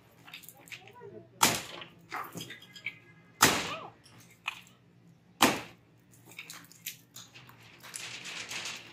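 Hand hammer blows on concrete, three heavy strikes about two seconds apart, each ringing briefly, with lighter knocks and chips between them. Near the end, a longer rough scraping noise.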